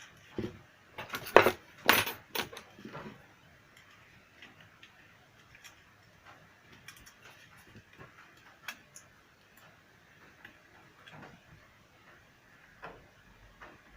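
Small hard objects being handled on a work surface, clattering and clicking: a cluster of loud knocks and clatter in the first three seconds, then scattered light clicks.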